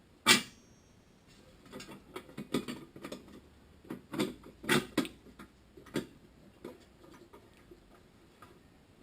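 Irregular clicks and knocks of small metal parts being handled and fitted by hand, the loudest a sharp knock just after the start and a cluster of them about four to six seconds in.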